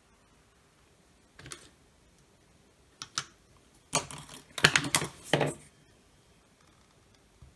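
Clicks and clatter of small tools and parts being handled and set down on a workbench mat: a couple of single clicks, then a busier run of clattering about four seconds in.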